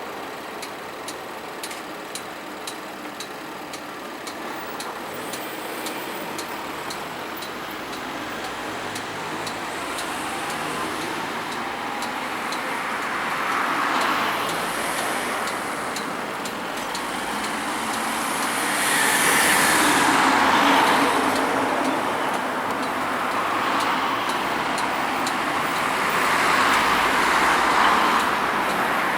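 Road traffic: several cars drive past one after another, each pass swelling and fading. The loudest pass comes about two-thirds of the way through.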